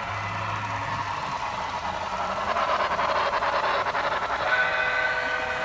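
Sound effects of an HO-scale model diesel locomotive: a rushing running noise swells in the middle, then a held horn chord starts near the end.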